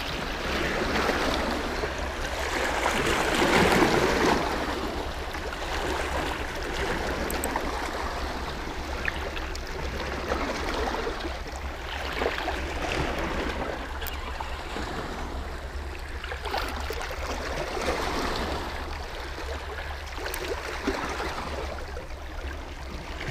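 Small sea waves washing and gurgling over shoreline rocks, swelling and falling back every few seconds, over a steady low rumble.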